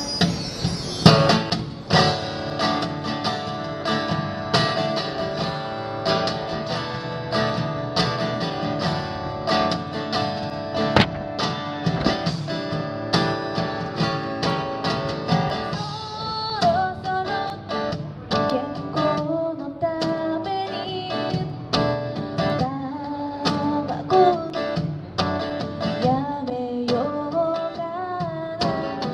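Live acoustic guitar strumming steadily through an instrumental passage of a pop song. A wavering melody line joins about halfway through.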